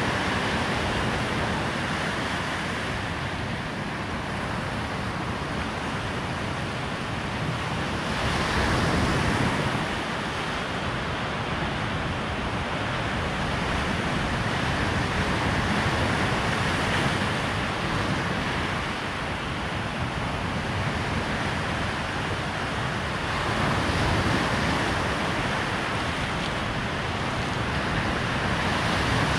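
Waves breaking on a sandy beach: a steady rush of surf that swells and eases every several seconds.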